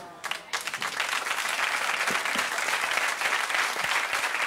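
Studio audience applauding: a few scattered claps at first, filling out within about half a second into steady, dense clapping.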